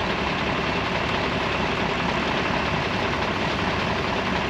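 A MAN KAT truck's diesel engine idling steadily.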